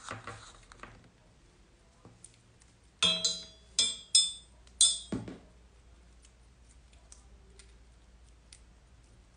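Handling noise close to a phone's microphone: a quick run of sharp scrapes and clatters about three seconds in, lasting around two seconds, over quiet room tone.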